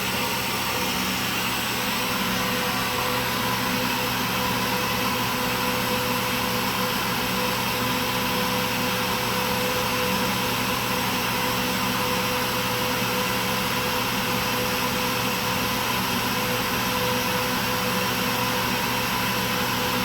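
Kaeser SFC 15 20 hp variable-speed rotary screw air compressor running at a steady speed: an even hiss with a steady hum and a few held tones that do not change.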